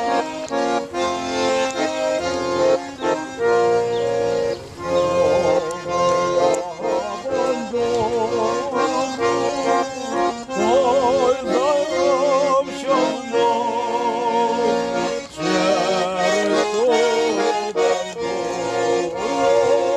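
Small button accordion (garmon) playing a folk tune, with melody over held chords.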